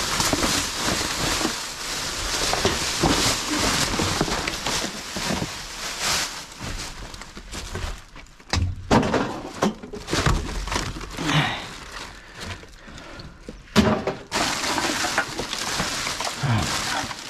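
Black plastic bin bags rustling and crinkling as gloved hands rummage through rubbish in a metal dumpster, with scattered knocks and one sharp bang about three-quarters of the way through.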